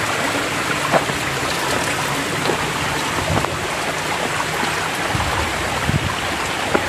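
Steady rushing noise, even and unbroken, with a few faint knocks.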